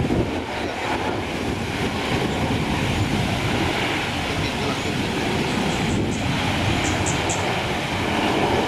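Bangkok Airways Airbus A319 jet engines heard from a distance as a steady rumble while the airliner rolls along the runway. A few faint high chirps come in near the end.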